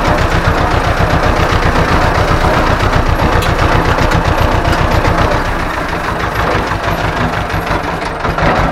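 Ursus C-330M tractor's two-cylinder diesel engine running steadily with a fast, even chugging beat, a little quieter for a couple of seconds near the end.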